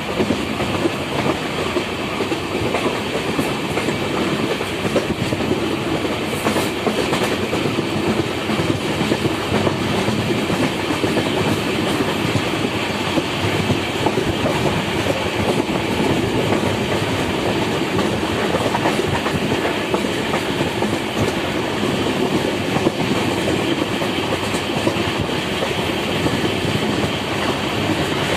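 Passenger express train running at speed, heard from an open coach doorway: a steady rumble and rush of the wheels on the track.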